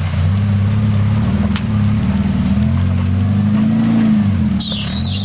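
Suzuki Samurai's 1.6-litre 16-valve four-cylinder engine revving up and down under load, its pitch rising and falling. A brief high-pitched squeal cuts in near the end.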